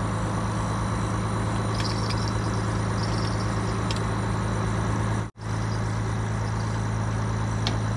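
A motor running steadily, a deep even hum with no change in speed; it cuts out for a split second about five seconds in.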